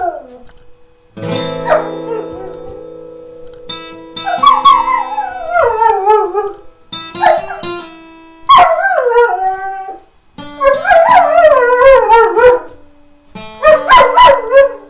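A dog howling along to instrumental music: about five long howls, each sliding downward in pitch, over held chords that change every few seconds.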